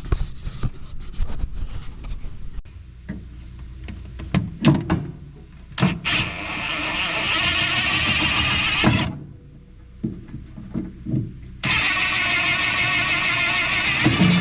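Handheld electric power tool running in two steady bursts of about three seconds, with a high whine, while backing out the long flathead screws of a gas pedal bracket whose nuts spin on the back side. Before it come scattered knocks and clinks of metal parts being handled.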